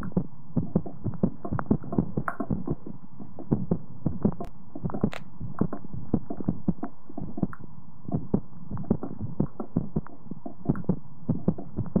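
Normal dog heart sounds recorded through a stethoscope: the repeating lub-dub of the heart valves closing, with no whooshing murmur between the beats. The rhythm speeds up and slows slightly with breathing, a normal sinus arrhythmia, and two faint clicks of recording interference come through about halfway through.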